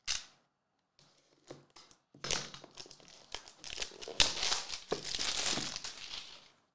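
Plastic shrink wrap being torn off a trading-card box and crumpled by hand: a dense run of crinkling and tearing that starts about two seconds in and is loudest in the middle, stopping shortly before the end.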